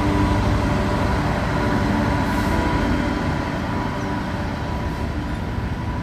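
Class 66 diesel-electric freight locomotive with its two-stroke V12 engine running steadily as it passes, hauling hopper wagons that roll along the track behind it.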